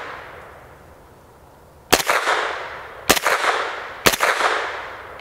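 POF-5 9mm pistol with an AAC Echo 9 suppressor firing non-subsonic 115-grain ball rounds. Three single shots, about a second apart starting about two seconds in, then a fourth right at the end. Each shot trails off in a long echo.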